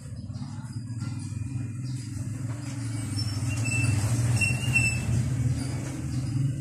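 Motorcycle engine idling steadily, growing a little louder toward the middle, then easing.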